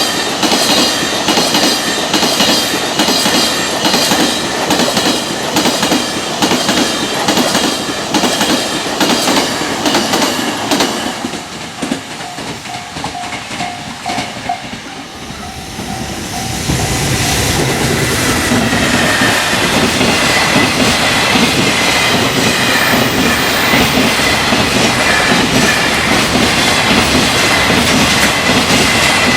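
Freight train running fast over rail joints, the wheels clicking in a steady rapid rhythm. It dies down about 11 seconds in, and a level-crossing bell rings briefly. About 16 seconds in a second freight train passes, loud, with a steady high whine over the running noise.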